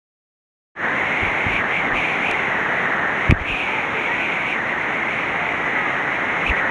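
After a moment of silence, the steady rush of a waterfall pouring through a narrow rock gorge into a pool, with one short knock about three seconds in.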